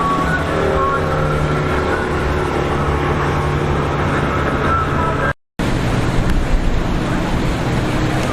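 Motorboat engines running steadily over the noise of rough water and wind, with a higher engine whine sliding in pitch in the first few seconds. The sound cuts out completely for a moment just after five seconds in, then the engine and water noise carry on.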